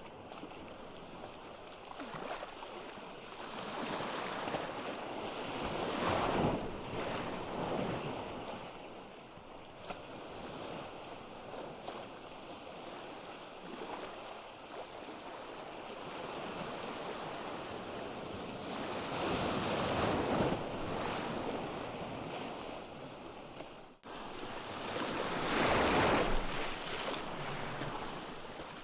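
Ocean waves breaking and washing up a beach: a steady surf hiss that swells into three louder surges, about six seconds in, around twenty seconds and near the end.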